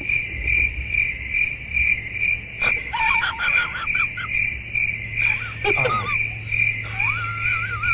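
A high-pitched chirp repeating steadily about three times a second, over a low hum. Short wavering, whine-like cries come in about three seconds in, and a longer wavering cry starts near the end.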